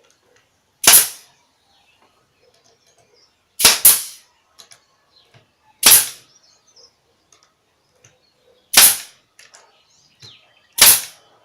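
Brad nailer firing 5/8-inch brads into a panel's glued joints: six sharp shots at uneven intervals, two of them in quick succession about four seconds in.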